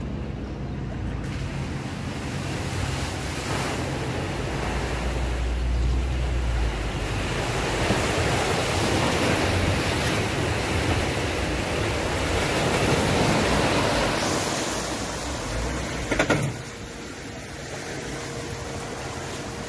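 A van ploughing through deep floodwater at a ford, its bow wave rushing and splashing, with its engine running low underneath. The rush builds up through the middle and eases off after a brief loud knock near the end.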